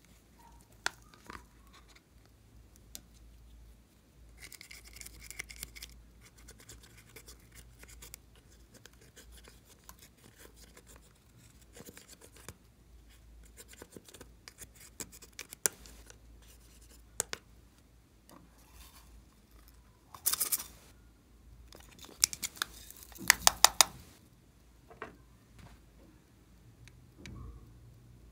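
An eyeshadow palette and a small plastic tool are handled and tapped, with scattered sharp clicks. Eyeshadow powder is scraped from the pans with scratching sounds: a short scratchy stretch early on, and two louder bursts of rapid scratching clicks in the last third.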